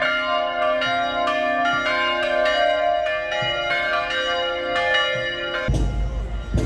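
A peal of church bells rung in quick succession, several pitches struck over and over and ringing on into each other. About five and a half seconds in, the bells cut off abruptly and give way to outdoor noise with a low rumble.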